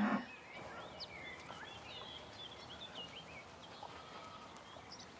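Faint outdoor ambience with scattered short, high bird chirps, most of them in the first half.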